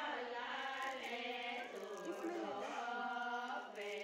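Voices singing a slow, chant-like song with long held notes that glide from one to the next.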